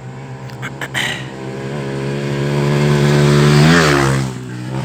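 Rally dirt bike passing close at speed. Its engine note builds to a peak about three and a half seconds in, then drops in pitch as it goes by.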